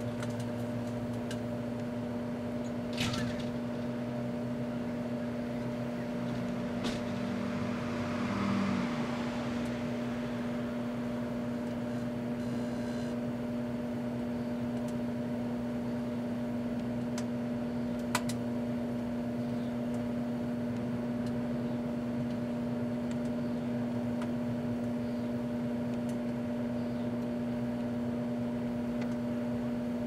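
Proctor-Silex microwave oven running with a steady electrical hum, while LED lights burn inside it: a few sharp crackles and a brief hissing swell about eight seconds in.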